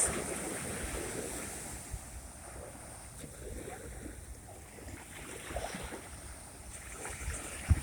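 Sea waves washing ashore, the surge loudest at the start and ebbing over the first couple of seconds, with wind buffeting the microphone.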